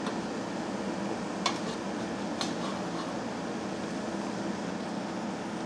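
Small oxyacetylene torch flame hissing steadily as it heats a steel plate clamped in a vise, softening it for bending, over a steady low hum. A couple of faint ticks come about one and a half and two and a half seconds in.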